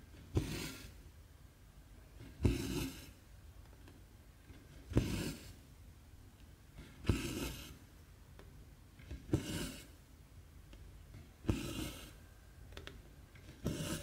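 Hand cross-stitching: a needle clicks through stamped cross-stitch fabric, and each click is followed by a short swish of cotton thread being drawn through. About seven stitches come at an even pace, one every two seconds or so.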